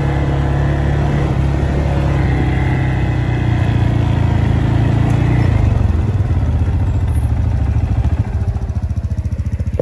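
ATV engine running under way, then the throttle eases off about halfway through and it drops to a slow idle with separate firing beats.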